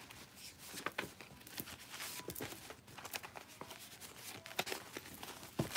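A stack of white paper slips being flipped through by hand: faint, irregular flicks and rustles of paper, several a second.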